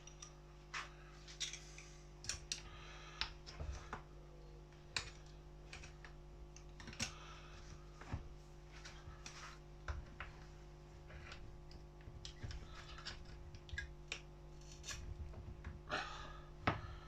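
Irregular clicks and light knocks of hand tools and metal parts being worked on a Husqvarna 137 chainsaw as its clutch is tightened down, over a steady low hum.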